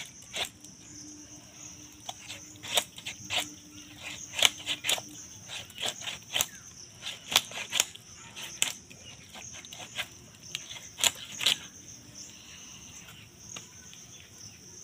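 A large katla fish head being cut apart with a blade: a string of irregular sharp cracks and clicks as the blade works through the head's bone, stopping a few seconds before the end, over a steady high hiss.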